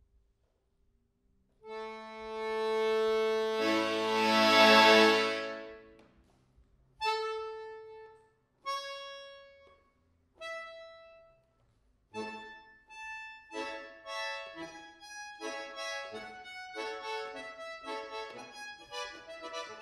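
Bayan (chromatic button accordion) played solo: a long, loud held chord swells and fades, then three separate held chords each die away, and about twelve seconds in a run of quicker notes begins.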